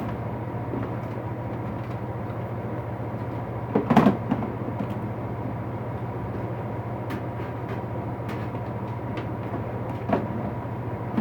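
Steady background hum with a few short knocks and clatters of items being handled and set down. The loudest knock comes about four seconds in and a smaller one near the end.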